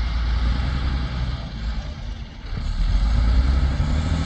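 An engine running steadily with a low rumble, dropping away briefly about two seconds in and then picking up again.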